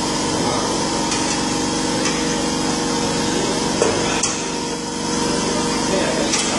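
A metal tyre lever prying a motorcycle tyre bead against the rim and mount head of a tyre changer: a few sharp knocks and scrapes, about four seconds in and again near the end. A steady machine hum runs underneath.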